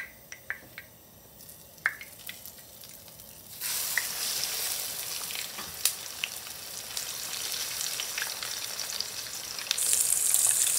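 Hot pork lard in a frying pan with a few small pops, then a breaded pork cutlet laid in about three and a half seconds in sets off a loud, steady frying sizzle. Near the end the sizzle grows louder as a spatula moves the cutlet in the fat.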